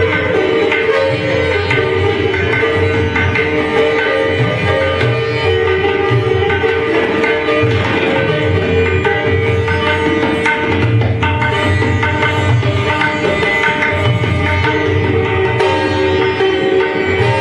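Sitar playing a Hindustani classical melody with tabla accompaniment, the tabla's low bass strokes recurring under the plucked sitar line.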